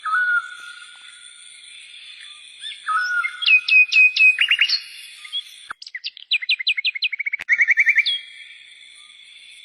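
Birds singing: a falling whistle that settles into a held note, then quick runs of short down-slurred notes and trills, over a steady high-pitched drone.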